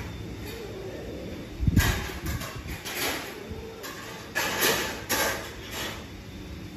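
Two cats mating: scuffling and knocks of the cats on the wooden board and caged mesh, with a heavy thump about two seconds in and several short rustling bursts, over faint low yowling.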